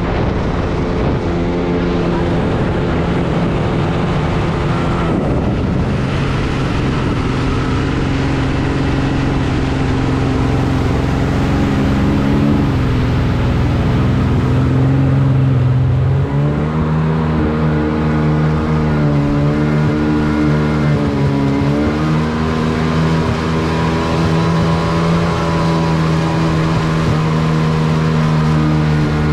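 Jet ski engine running under way over a rush of water and wind. The note drops a few seconds in, rises sharply about halfway through, then wavers up and down with the throttle.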